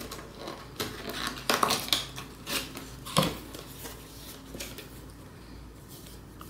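A cardboard box being opened by hand: flaps pulled open and paper cards handled inside, a run of short scrapes and rustles. They are busiest over the first three seconds, the loudest about three seconds in, then turn sparse and faint.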